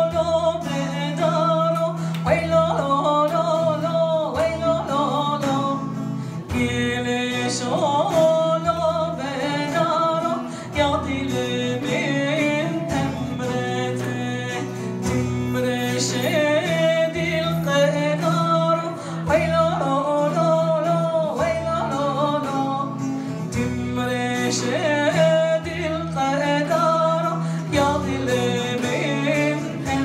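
Live acoustic music: a woman singing a wavering melody to the accompaniment of a plucked oud, with a regular low beat from a hand-played frame drum.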